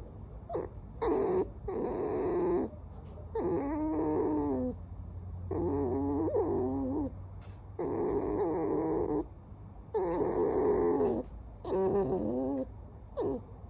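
Pet red fox giving a series of squeaky, whining calls: about six drawn-out calls, each a second or so long, rising and falling in pitch, with short pauses between them.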